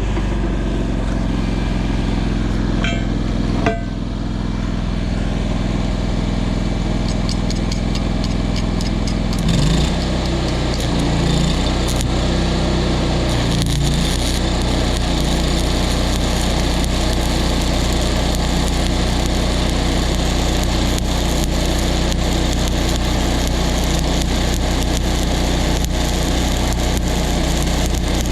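Engine of an engine-driven welding machine running steadily, its note shifting about ten seconds in, with a sharp knock about four seconds in.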